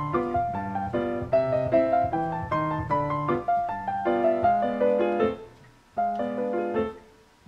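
Background piano music: single notes in an even, flowing rhythm. It dies away about five seconds in, returns for one short phrase, and dies away again near the end.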